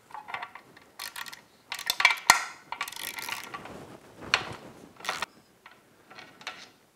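Ratchet on an extension and 12 mm socket clicking in several short bursts as it backs out the bolt that holds an outboard's trim tab.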